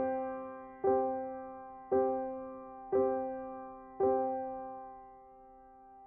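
Background piano music: a soft chord struck about once a second, four times, each left to ring out, the last fading away near the end.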